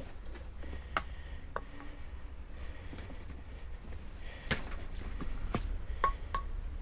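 Light knocks and clicks of old and new car engine mounts being handled and held against each other, a handful spread out, the last two near the end ringing briefly, over a low steady hum.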